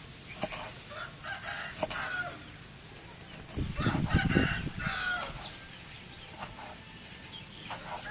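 Rooster crowing, loudest about four seconds in, with the knife clicking against a wooden chopping board as cooked cow nose is sliced.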